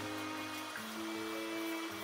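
Instrumental background music, a melody over a bass line.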